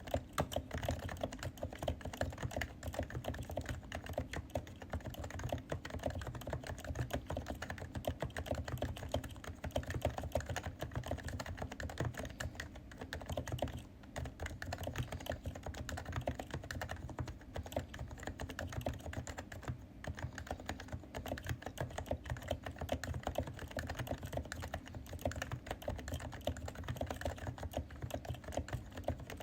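Steady fast typing on a stock Realforce 108UH-S keyboard, its Topre electrostatic capacitive switches making a dense run of keystrokes, with a couple of brief pauses.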